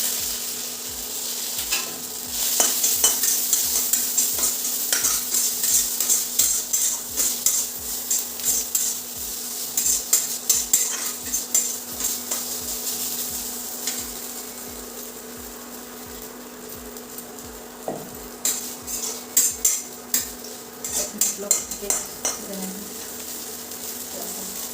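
Ginger frying in hot ghee in a kadhai: a steady sizzle, with a utensil stirring and clinking against the pan. The sizzle is loudest in the first half and eases off around the middle, and the stirring clinks grow busier near the end.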